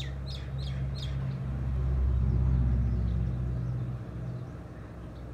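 A vehicle drives past, its low rumble swelling to a peak about halfway through and fading by about four seconds in. A bird chirps several times in quick succession at the start.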